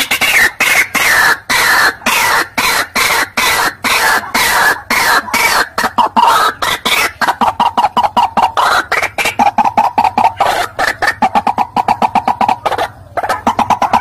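White-breasted waterhen calling: a fast, loud run of harsh repeated notes, several a second, some dropping in pitch, breaking off briefly near the end and then going on.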